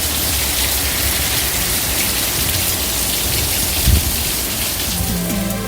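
Steady rain falling on a car, an even hiss of drops.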